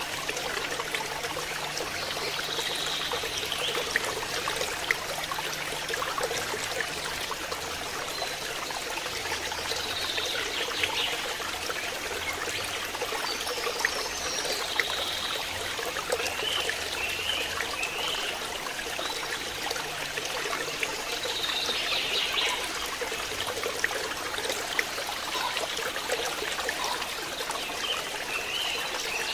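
Steady trickling of running water, with a few short high chirps now and then.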